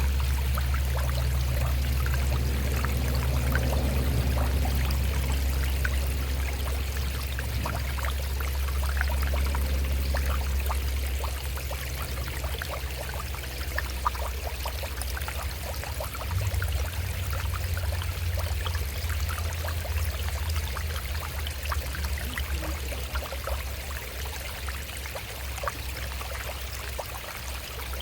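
Shallow stream running over rocks, a steady splashing trickle. Underneath is a low rumble of road traffic that fades about ten seconds in and swells again briefly around the middle.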